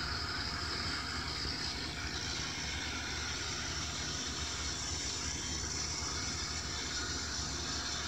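Steady background hiss with a low hum, unchanging, with no distinct events.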